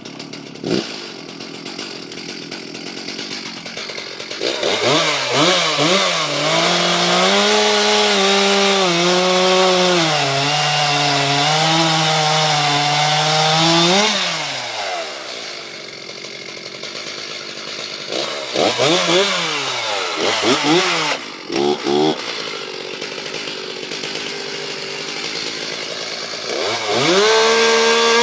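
Stihl MS361 professional two-stroke chainsaw idling, then opened to full throttle and cutting through wood for about ten seconds, its pitch sagging and wavering under load. It drops back to idle, is blipped a few times, and revs up again near the end, running as it should.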